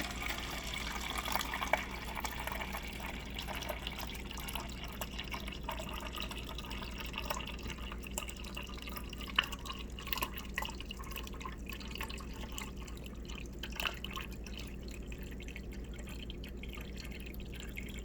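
Refrigerator water dispenser running into a plastic cup, with a few sharp spits and drips as air is purged from a newly fitted water filter.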